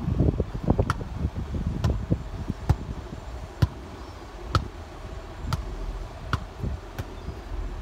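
Sharp clicks about once a second, over a low rumble with rustling in the first second.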